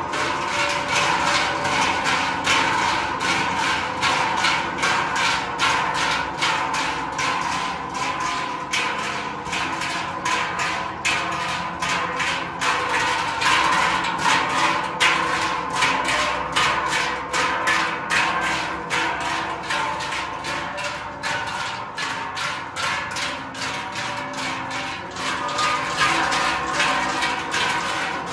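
A marching group of Swiss bell ringers swinging large Trychel cowbells in step, a dense, steady, rhythmic clanging with the bells' ringing tones sustained underneath.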